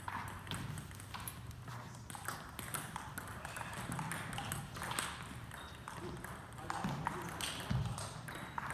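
Table tennis balls clicking and bouncing off tables and paddles: scattered, irregular light ticks rather than a steady rally, with faint voices in the hall.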